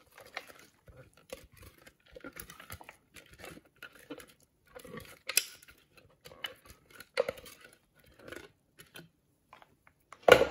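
Chopped onion being scraped with a spoon out of a container into a bowl of minced beef: scattered rustling, crinkling and light scraping, with one louder knock near the end.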